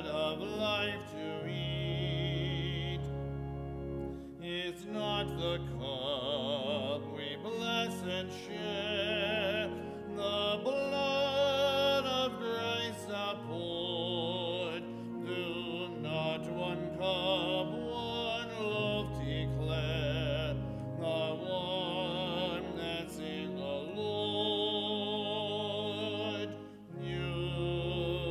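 Church music at communion: a solo voice singing a slow hymn with wide vibrato over held instrumental accompaniment with sustained bass notes.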